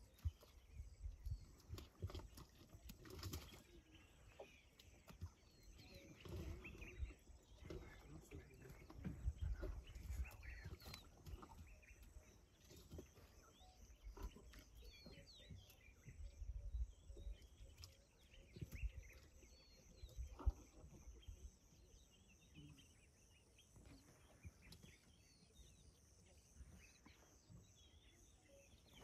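Large predators feeding on a buffalo carcass, heard faintly as irregular low bursts of chewing and tearing. Faint bird chirps and a steady high hum sit behind it.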